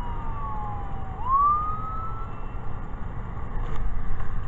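Emergency vehicle siren wailing, its pitch falling slowly and then sweeping back up about a second in before fading, heard over the low rumble inside a car.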